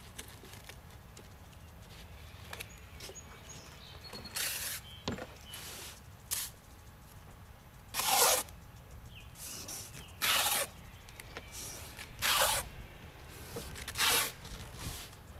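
Clear tape being pulled off its roll in short, sudden rips, about seven of them roughly every one to two seconds, as it is laid along a piece of foam pool coping.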